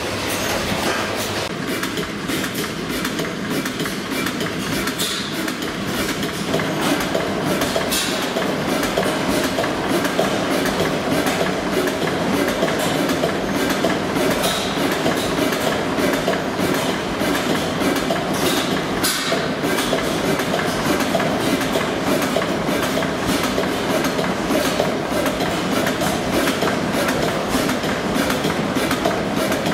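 Vintage horizontal stationary engine with a large flywheel running, making a steady, rhythmic mechanical clatter that grows a little louder about six seconds in.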